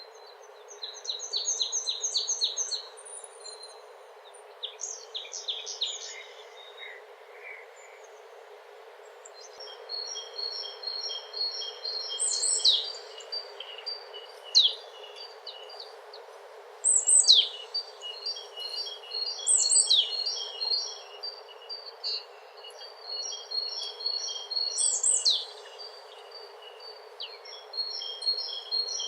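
Several songbirds singing over a steady background hiss: quick trills of repeated notes and sharp downward-swooping whistles, in short bursts, busier in the second half.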